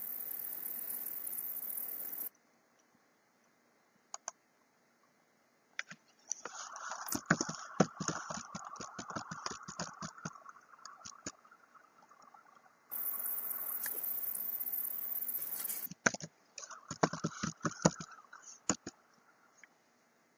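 Computer keyboard typing in quick runs of key clicks, with mouse clicks, broken by stretches of steady hiss. The hiss fills the first two seconds and returns in the middle, and the typing comes in two runs: a longer one before the middle and a shorter one after it.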